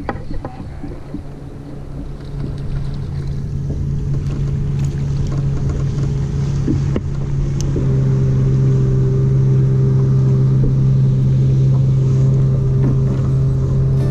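Boat motor running with a steady hum that gets louder about two seconds in and again about eight seconds in, with water and wind noise underneath.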